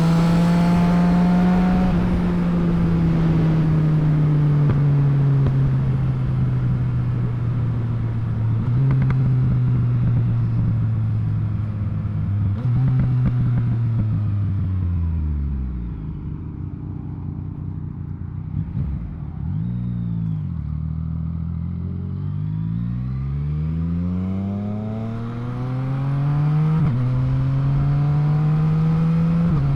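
Yamaha MT-09's three-cylinder engine under way: it runs steadily with a couple of upshifts, then drops in pitch as the bike slows on engine braking, with short throttle blips on the downshifts. After that it pulls up through the gears in repeated rising sweeps, with an upshift near the end.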